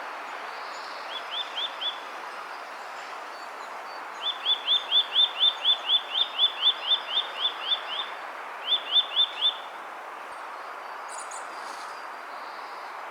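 Eurasian nuthatch of the Hokkaido subspecies (Sitta europaea asiatica) singing clear, rising whistled notes, "fi-fi-fi", about four a second in three runs: a short run, a long run of about sixteen notes, then another short run. A steady hiss of background noise lies underneath.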